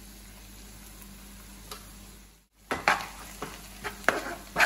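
Onions and ginger-garlic paste frying in oil in a nonstick frying pan: a quiet sizzle. After a brief dropout about halfway through, a steel spoon stirs and scrapes against the pan in several sharp strokes over the sizzling.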